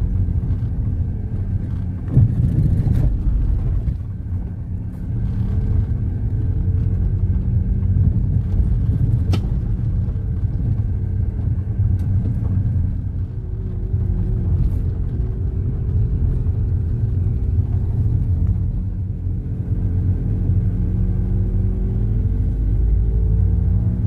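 Car driving on a dirt road, heard from inside the cabin: a steady low rumble of engine and tyres on the unpaved surface, with the engine note drifting up and down a little and a few sharp knocks from bumps about 2, 9 and 12 seconds in.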